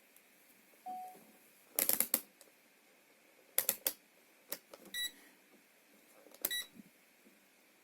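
A few sharp clicks and clatters from handling gear on a workbench, with a short low electronic tone about a second in and two brief high electronic beeps a second and a half apart near the end.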